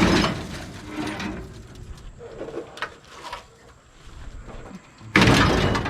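Scrap metal being handled and thrown. A loud crash right at the start rings on, quieter knocks and scrapes follow, and a longer clattering crash comes near the end.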